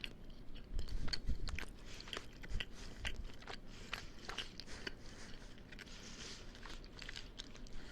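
A person chewing and biting food close to the microphone: wet mouth clicks and crunches, with a few heavier low thumps about a second in and again about three seconds in.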